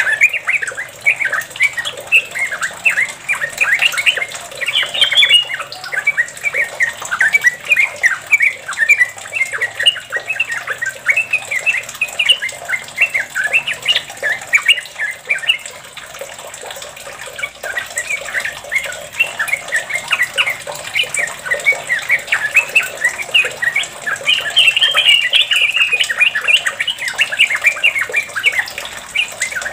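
Yellow-vented bulbul singing a long, rapid run of chattering, bubbling notes (the continuous 'ropel' song), with a brief lull about halfway through.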